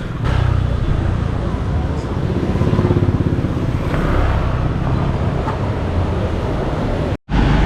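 City street traffic noise: motor vehicles running close by, with a steady low rumble. The sound cuts out for a moment near the end.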